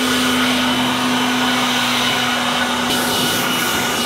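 Handheld electric leaf blower running steadily at full speed, blowing air across a sanded wooden cabinet door: a constant rush of air with a steady hum and a high whine.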